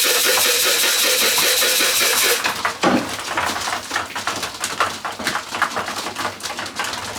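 A flock of young racing pigeons coming into the loft: a steady rush of noise that cuts off suddenly about two and a half seconds in, then rapid, irregular tapping and clicking.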